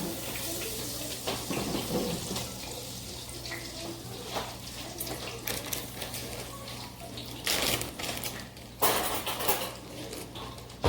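Kitchen work sounds: a steady hiss over a low hum, with pots, pans and dishes clinking. Two louder bursts of hissing come about seven and nine seconds in.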